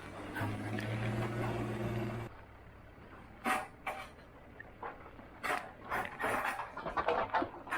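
Takeuchi TL12 skid steer's engine running steadily, then a string of sharp knocks and clatters.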